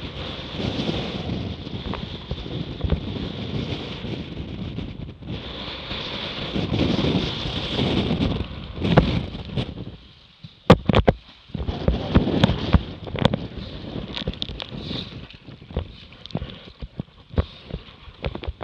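Wind buffeting the microphone and water rushing and splashing against a Laser Radial sailing dinghy's hull as it sails hard through choppy water. About ten seconds in, the rushing drops away and a run of sharp slaps and knocks follows, then more splashing.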